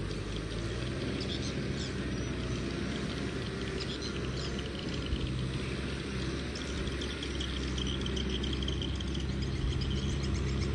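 Kubota M6040 tractor's diesel engine running steadily under work.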